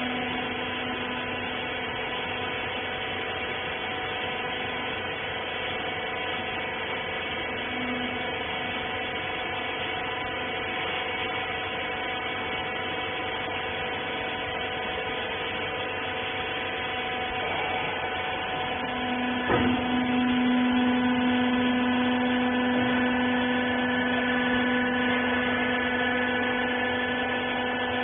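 Rag baler's electric hydraulic power unit running with a steady humming whine; about two-thirds of the way in there is a click and the hum gets louder.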